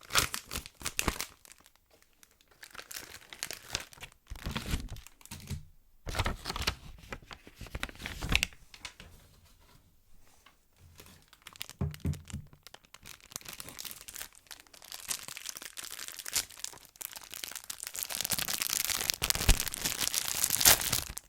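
Packaging around a small sponge being handled and torn open, with scattered clicks, scratches and a few soft thumps, then steadier, louder crinkling toward the end.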